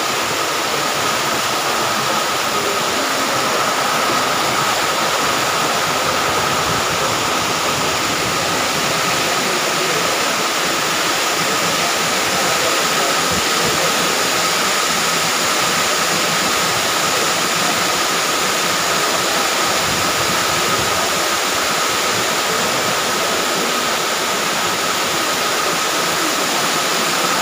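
Muddy rainwater in flood, rushing and churning in a torrent along a paved corridor floor: a loud, steady rush. A faint steady high tone runs under it.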